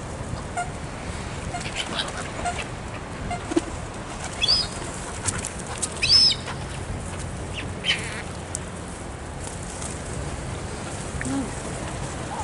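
Birds flocking to food: wings flapping and a few short high-pitched calls, the loudest about four and a half and six seconds in, over a steady low background noise.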